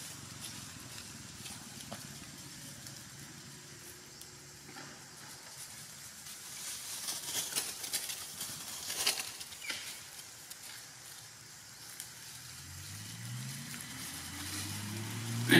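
Dry leaf litter rustling and crackling under feeding monkeys, with scattered clicks that are busiest in the middle. Near the end a low engine hum from a vehicle comes up and rises in pitch.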